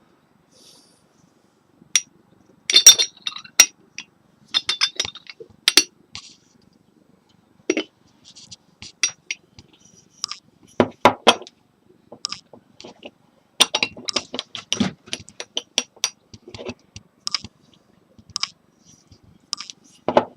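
Teapot being handled: repeated sharp clinks and taps of the lid and body knocking together, in irregular clusters with short pauses between them.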